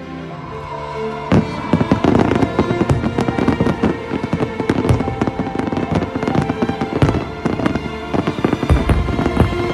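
Fireworks going off: a sharp bang about a second in, then dense, continuous crackling of many small pops, with music playing underneath.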